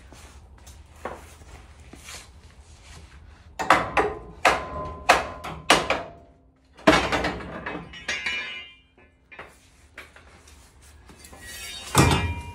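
Hammer blows on the top of a classic Chevrolet C10's lower ball joint to knock its stud out of the spindle. First a quick run of about six sharp metal strikes, some ringing, then a harder strike, then one more near the end.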